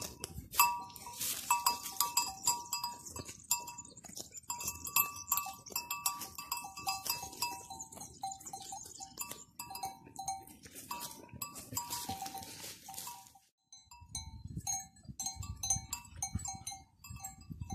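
Livestock bells clanking irregularly, as on a flock of grazing animals. The bells drop out for a moment about thirteen seconds in, then go on.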